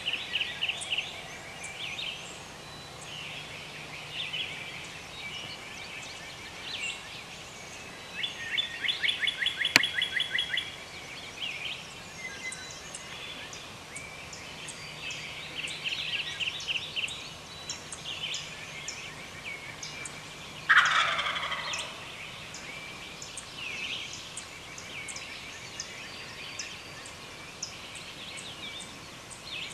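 Wild turkey gobbler gobbling several times, the loudest and fullest gobble about 21 seconds in, with songbirds chirping throughout.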